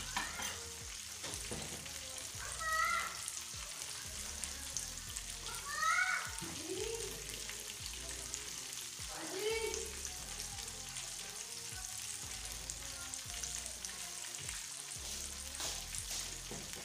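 Batter-coated chicken wings deep-frying in hot oil over a low gas flame: a steady sizzle and crackle of bubbling oil. Three short pitched sounds, rising and falling, come about 3, 6 and 9.5 seconds in.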